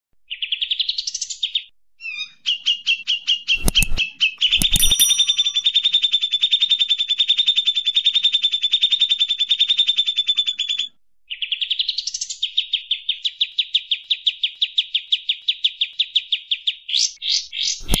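Kapas tembak bulbul calling in long, fast rattling trills of rapidly repeated high notes, broken by short pauses. This is the rapid 'tembak' chatter used as a masteran recording for songbirds to copy. Two sharp clicks come about four seconds in.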